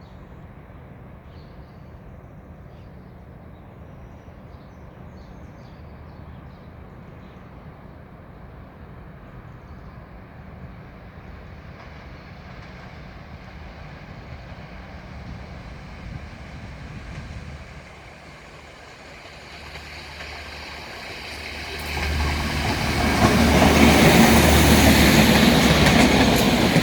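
ALn 668 diesel railcar train approaching, its diesel engine and running gear faint at first and slowly growing louder. About 22 seconds in it passes close by with a loud rumble of engine and wheels.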